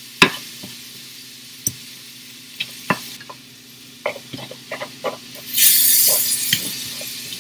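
Ground turkey sizzling in a hot cast iron skillet while a plastic spoon stirs and breaks it up, with scattered taps and scrapes of the spoon against the pan. A little past the middle the sizzle swells louder for about a second.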